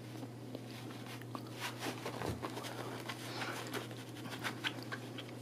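Faint, scattered scratching and rustling on a carpeted cat play mat, over a steady low hum.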